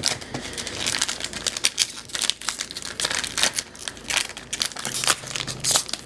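Foil Pokémon card booster-pack wrappers crinkling as they are handled, with one pack torn open by hand.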